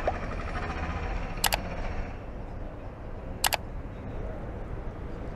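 Two sharp mouse-click sound effects, each a quick double click, about two seconds apart, from an animated like-and-subscribe button, over steady outdoor city noise.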